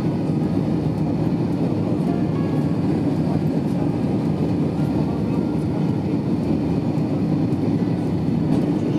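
Steady low cabin rumble inside an Airbus A320-214 on its landing approach: engine and airflow noise heard from a rear window seat.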